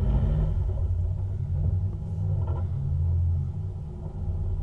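Jeep Wrangler Rubicon's 3.8-litre V6 engine running at low revs, a steady low rumble that eases off a little about three and a half seconds in, while the Jeep works at a slick clay ledge.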